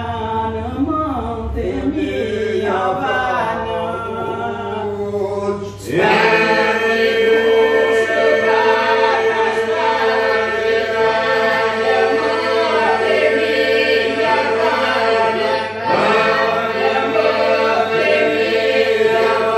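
Unaccompanied Albanian polyphonic singing. For about the first six seconds a woman's lead voice sings alone, winding over a low held tone; then the whole group comes in loudly, holding a steady drone (iso) under the moving upper voices.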